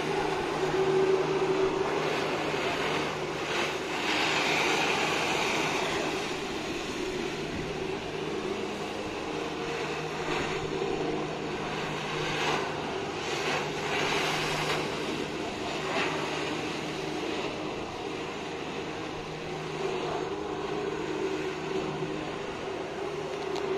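Jet ski engine running hard to drive a flyboard through its hose, a steady drone. The water jets hiss and spray over it, swelling several times as the rider rises and turns.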